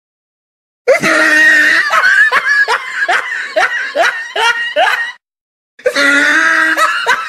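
Laughter sound effect: a loud run of repeated laughs, about three a second, that starts suddenly out of silence, breaks off about five seconds in and starts again half a second later.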